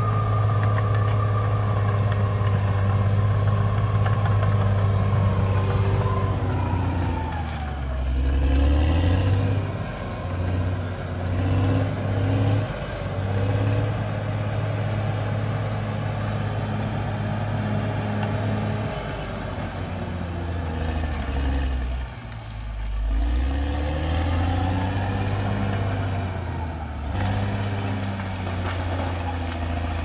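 Caterpillar D6R XL bulldozer's diesel engine running hard, its pitch sagging and then climbing back twice as the machine takes on load and eases off.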